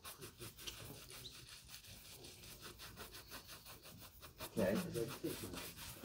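A bristle shoe brush swept briskly back and forth across leather loafers, buffing them during a shoe shine: rapid, even brushing strokes, several a second. A voice speaks briefly near the end.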